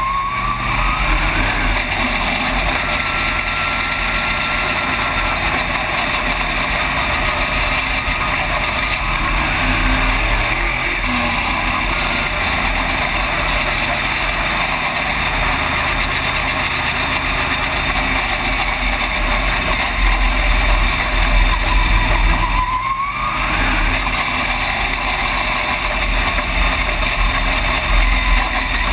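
Race car engine heard from inside the cockpit, running hard at racing speed, its note rising and falling over heavy wind and road noise. A short rising whine cuts through twice, at the very start and again near the end.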